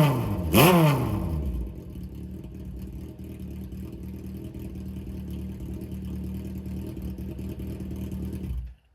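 Kawasaki Z500 air-cooled inline-four on TK carburettors, running through a short exhaust with a bullet silencer. It takes one quick throttle blip about half a second in, then drops to a steady idle. The sound cuts off suddenly just before the end.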